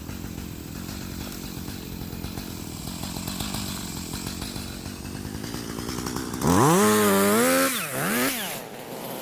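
Two-stroke chainsaw idling with an even pulse, then throttled up sharply about six and a half seconds in, held for about a second, dipping and revving once more before dropping back to idle.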